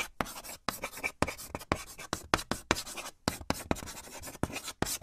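Marker pen scribbling in quick, irregular scratchy strokes, about four a second, stopping abruptly at the end.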